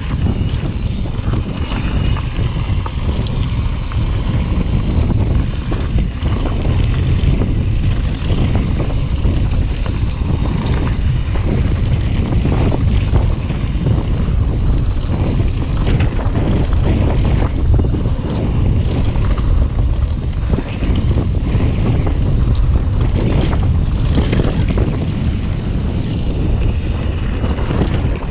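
Wind rushing over the action camera's microphone as a mountain bike rolls fast down a dirt and rock trail, with the tyres crunching over gravel and many short rattles and knocks from the bike over rocks.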